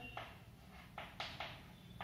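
Chalk writing on a blackboard: several short, faint scratching strokes, most of them bunched about a second in.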